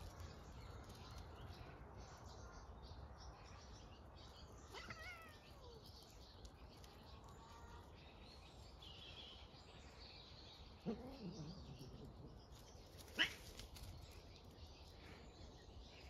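Quiet outdoor background with faint bird chirps, a few short falling calls, and one brief sharp sound near the end.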